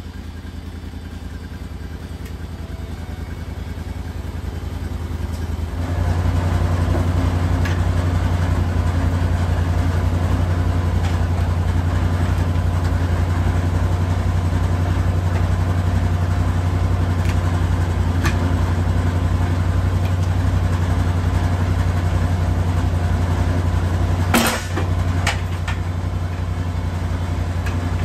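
Band sawmill's engine running steadily, rising in level over the first few seconds and stepping louder about six seconds in. One sharp knock near the end.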